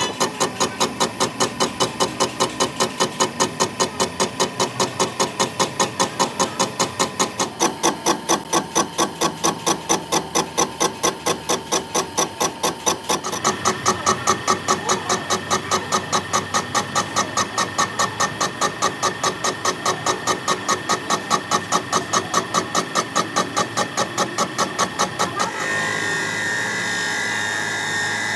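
A workshop machine running with a regular pulsing beat of about three a second over steady tones. The tone shifts a few times, and near the end the beat fades into a steadier hum.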